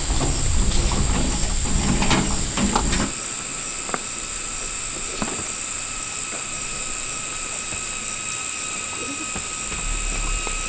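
A steady, high-pitched chorus of insects, with a low rumble and a few knocks during the first three seconds.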